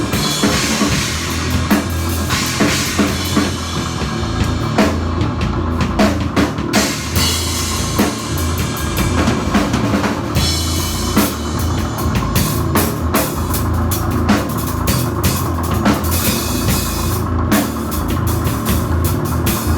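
Rock music played by a band, with a drum kit hitting hard and fast over a steady low bass line.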